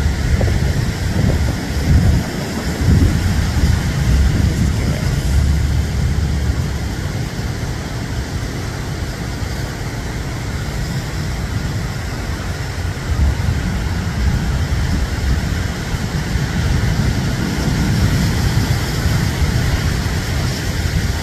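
Ocean surf washing onto a beach, steady and continuous, under heavy gusts of wind buffeting the microphone.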